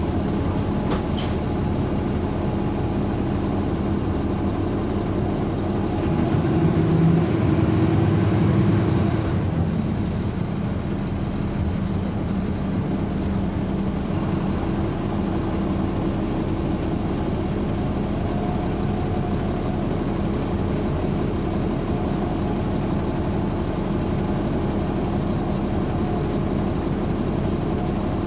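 A 2009 NABI 416.15 transit bus's Caterpillar C13 ACERT diesel engine running under way. About six seconds in it pulls harder and grows louder for a few seconds, then eases off with a high whine falling in pitch, and settles back to a steady run.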